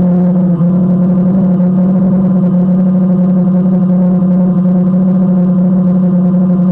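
DJI Phantom quadcopter's electric motors and propellers in flight, heard up close from a camera on its own frame: a loud, steady hum with one strong low tone and many overtones above it.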